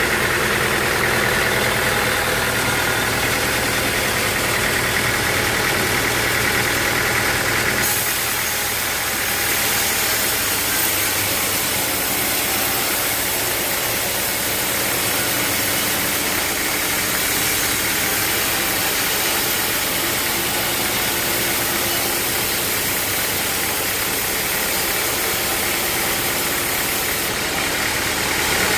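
Sawmill machinery running steadily with an engine-like hum. About eight seconds in, the sound turns brighter and hissier, and it eases back near the end.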